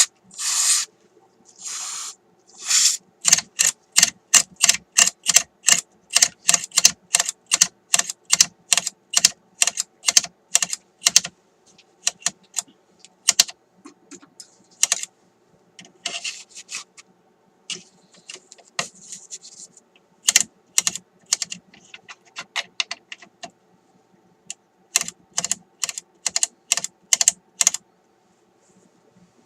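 Brief hisses of aerosol contact cleaner at the start, then the RCA M-45 radio's rotary wafer band switch clicking rapidly through its detent positions, about two to three clicks a second, as it is worked back and forth to clean its dirty contacts. The clicking pauses midway and resumes in another quick run near the end.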